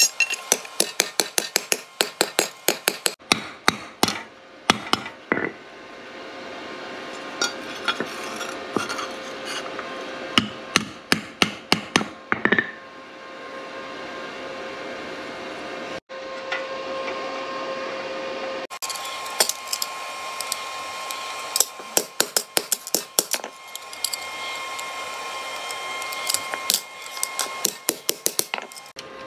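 Hand hammer striking a thin steel propeller blade laid on a stone block, in quick bouts of several sharp blows a second, to shape the blade. The bouts are broken by pauses of a few seconds in which a steady hum is heard.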